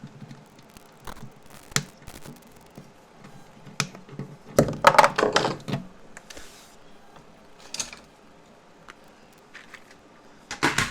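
Clicks, knocks and scraping of hand work pulling an old interior light fixture free, with a louder scraping rattle lasting about a second and a half around five seconds in and a shorter one near the end.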